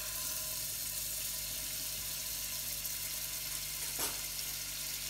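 A piece of butter sizzling steadily as it melts in a hot non-stick pot, with a small tick about four seconds in.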